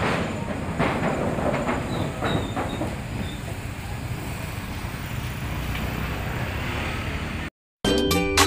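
Steady rumble with a run of clattering knocks in the first few seconds, heard on a steel truss rail bridge as it is being crossed. It cuts off near the end and cheerful background music begins.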